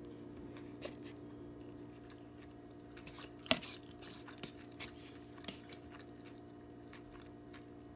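A person chewing a mouthful of sandwich close to the microphone, with several short wet mouth clicks, the loudest about three and a half seconds in, over a steady low hum.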